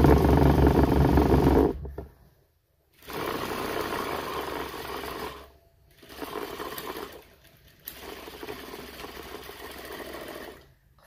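Juki industrial sewing machine stitching a corner seam through cotton fabric, in four runs separated by short pauses. The first run, about two seconds long, is the loudest.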